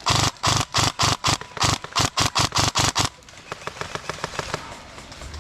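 Specna Arms E26 MK18 airsoft electric rifle (AEG) firing a rapid string of about a dozen shots in three seconds, each a sharp mechanical crack with a buzz from the gearbox. The firing stops about three seconds in, leaving fainter, quicker ticking at a steady pace.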